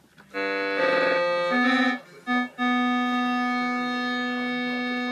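A kitten walking on an electronic keyboard, its paws pressing keys: a jumble of notes sounds about half a second in, two short notes follow near two seconds, then one note holds steady without fading while a paw rests on the key.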